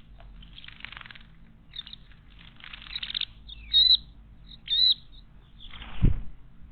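Wild bird giving two loud, sharp calls about a second apart, among softer rustling sounds, with a brief whoosh near the end.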